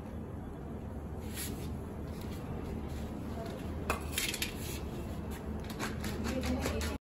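A steel plate clinks once sharply about four seconds in, followed by a run of lighter clicks and ticks, over a steady low background hum.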